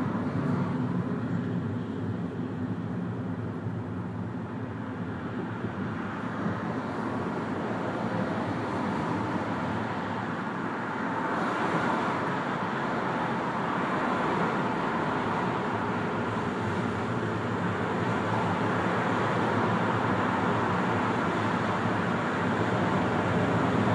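Steady road noise of a car driving on a motorway, heard from inside the car: a low engine and tyre hum that swells a little about halfway through and again near the end.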